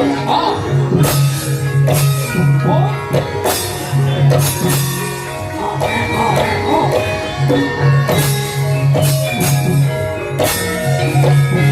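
Javanese gamelan ensemble playing: many struck metal tones ringing on steady pitches over a strong low tone, with sharp percussion strokes at intervals.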